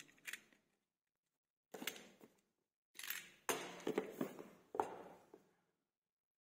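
Faint handling of the yellow cardboard retail box of a Realme 12 Pro Plus as it is opened by hand: scrapes, rubs and light knocks in three short spells.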